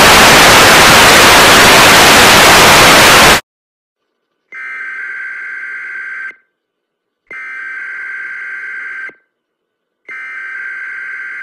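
Loud television static hiss that cuts off abruptly about three seconds in. After a moment of silence, an emergency broadcast alert tone sounds three times: steady, high beeps just under two seconds long with short silent gaps between them.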